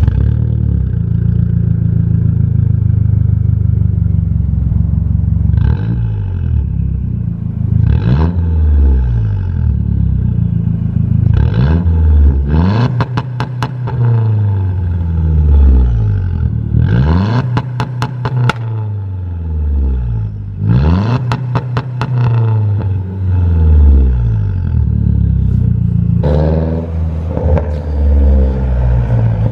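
2009 Mazdaspeed3's turbocharged 2.3-litre four-cylinder, through a catted downpipe, deleted resonators and the stock muffler, idling steadily for a few seconds, then blipped up and down about eight times. Bursts of sharp pops and crackles come from the exhaust as some of the revs fall, and the whole is extremely loud.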